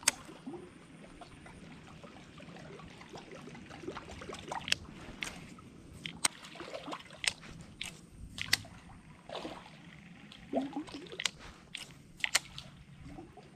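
Quiet water sloshing and trickling around a small wooden boat, with scattered sharp clicks every second or so.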